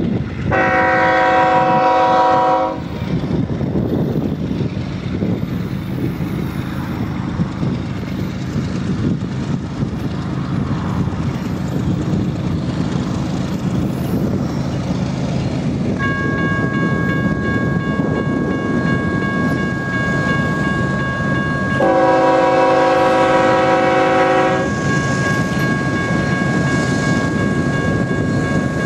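A diesel freight locomotive's multi-chime air horn sounds two long blasts of about two seconds each, one just after the start and one about 22 seconds in, over the steady rumble of the approaching train. About halfway through, a steady high whine sets in and continues.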